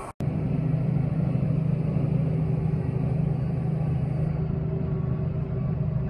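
Tractor engine running at a steady speed, a low even drone with a constant hum.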